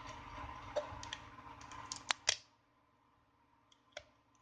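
Fingers handling a Samsung Galaxy S5's frame and peeling its glued charging-port flex cable free: soft rustling with small plastic clicks, two sharp clicks a little past halfway, then one more click near the end.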